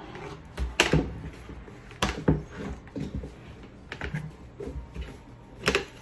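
Hard plastic knocks and clicks from a collapsible portable washing machine being pressed and pulled open by hand, a handful of sharp taps at irregular intervals.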